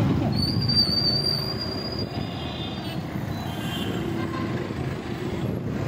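Vehicle running on a town road with steady rumbling road noise, and a high, thin squeal lasting about two and a half seconds near the start.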